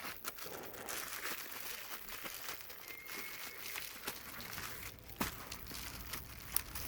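Plastic packaging crinkling and rustling as it is handled, with scattered small clicks and a couple of sharper snaps near the end.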